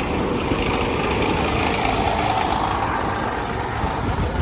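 Street traffic: vehicle engines running close by, a steady low rumble.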